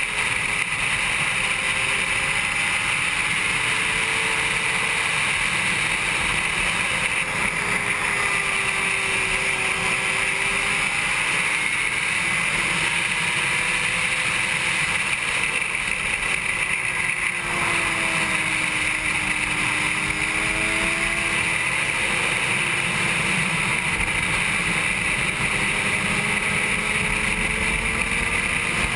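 2007 Honda CBR600RR's inline-four engine at racing speed under a steady rush of wind, heard from a camera mounted on the bike. The engine's pitch rises and falls with throttle and gear changes through the corners.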